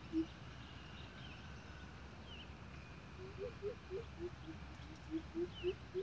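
Greater coucal calling: a series of deep hoots, about three a second, starting about three seconds in and wavering up and down in pitch, after the last hoot of an earlier series right at the start. Faint high chirps from small birds come twice.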